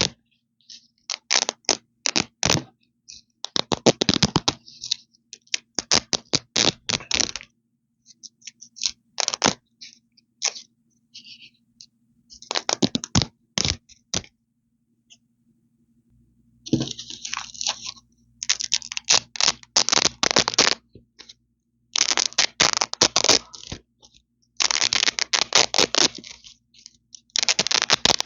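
Hook-and-loop (velcro) strips ripped apart close to the microphone: crackly, crunchy tearing in repeated strokes of about one to two seconds, with short pauses between them.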